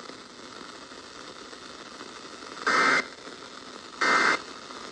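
Steady radio static hiss, then two short, raspy Emergency Alert System data bursts just over a second apart, beginning about two and a half seconds in: the digital end-of-message code that closes the severe thunderstorm warning broadcast.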